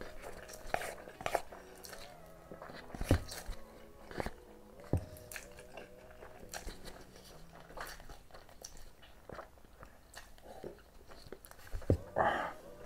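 Close-up eating sounds of a man chewing and slurping Samyang Buldak carbonara instant noodles, with sharp wet mouth clicks scattered throughout.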